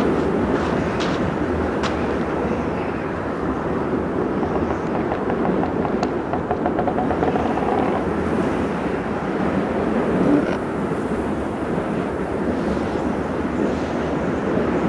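Steady snowstorm wind blowing, an even rushing noise with no tone to it.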